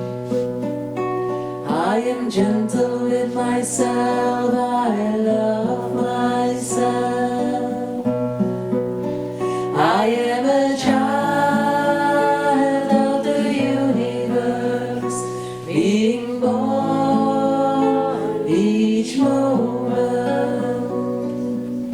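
A song with a voice singing long held notes over strummed acoustic guitar.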